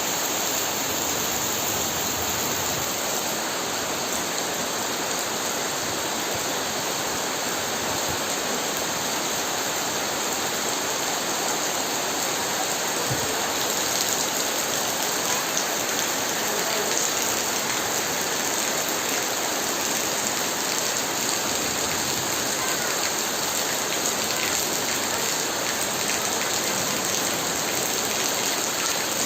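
Steady summer rain falling on surfaces, a continuous even hiss of many drops.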